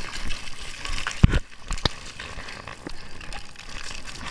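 Splash-park fountain water spraying and splattering as a steady hiss, broken by a few sharp knocks, the loudest a low thump about a second in.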